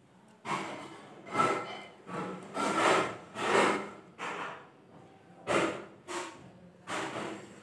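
A string of short, irregular rubbing and rustling noises right at the microphone: hands handling a smartwatch and fitting its magnetic charging cable.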